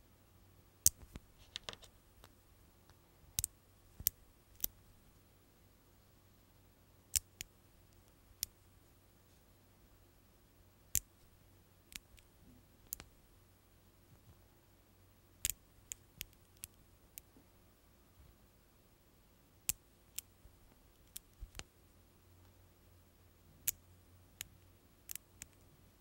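5 mm magnet balls snapping together: sharp, bright clicks, singly or in quick pairs, at irregular intervals with quiet gaps between, as ring-shaped units of balls are pressed onto a larger magnet-ball shell.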